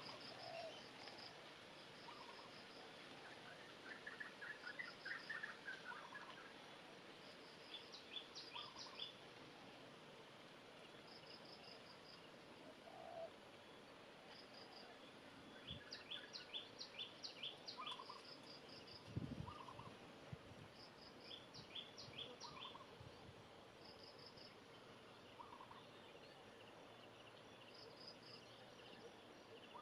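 Small birds chirping, repeating short, rapid trills of high chirps every second or two. A soft low thump about two-thirds of the way through.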